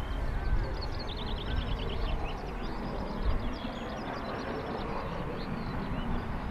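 Songbird singing: a quick high trill about a second in, then scattered chirps, over a steady low rumble.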